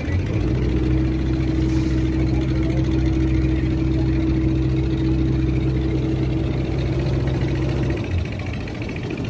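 Fishing boat's engine running steadily under way, a low even hum; about eight seconds in its steady tone drops away briefly.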